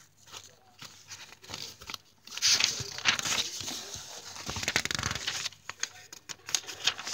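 Paper rustling and crinkling as large sheets are handled and flipped. It starts about two and a half seconds in and is loudest for about three seconds, then thins to lighter crackles.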